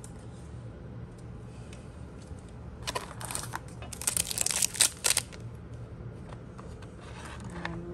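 Crinkling and rustling of a trading-card pack and its cards being handled, in short bursts about three seconds in and again around four to five seconds, over a steady low hum.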